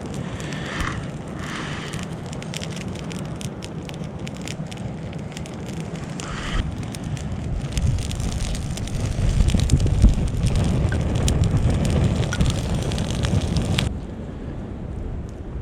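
A fire burning with a steady hiss, a low rumble and many sharp crackles and pops. It grows louder in the second half and cuts off suddenly near the end.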